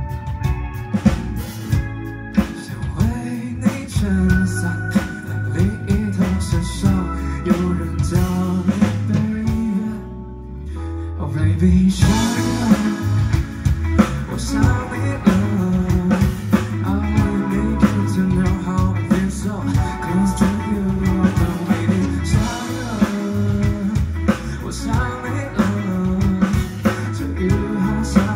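Live pop-rock band playing a song, with electric guitar, bass guitar, drum kit and a male lead vocal. About ten seconds in, the drums drop out for a moment, and then the full band comes back in with cymbals.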